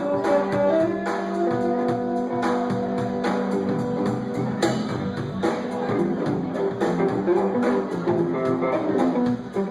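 Live rock band playing: guitars over bass and a steady drum beat, an instrumental passage.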